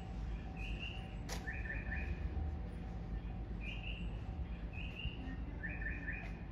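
Short bird-like chirps repeating in a regular cycle: two high chirps, then a quick run of three lower notes, with the cycle coming round again about halfway through. Beneath them is a steady low rumble.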